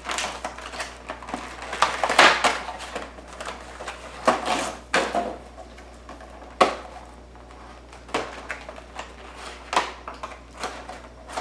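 An action figure's packaging being pulled open by hand: irregular crackles, rustles and knocks, with a sharp click about two-thirds of the way through.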